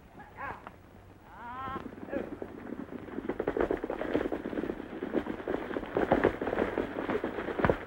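Hoofbeats of a band of horses galloping: a dense, fast clatter that builds from about two seconds in and stays loud as the riders close in. Just before it comes a short wavering animal call.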